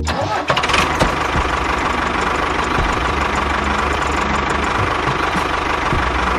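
A small motor running steadily with a fast, even rattle and a faint steady whine.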